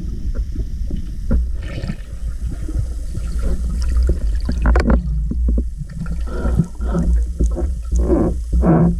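Water gurgling and sloshing over a steady low rumble, with many small clicks. Music with a regular beat comes in over the last few seconds.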